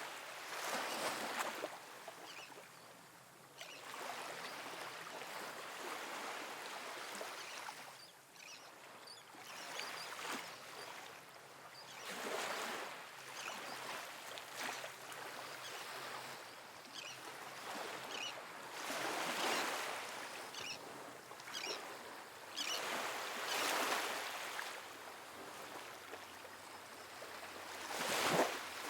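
Small ocean waves washing onto a sandy beach: a soft rushing surf that swells and eases every few seconds, with its loudest wash near the end.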